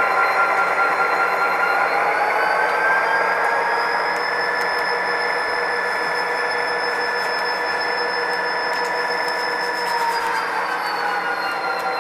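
HO-scale model diesel locomotive running, a steady pitched hum that rises about two seconds in, holds, and falls back near the end.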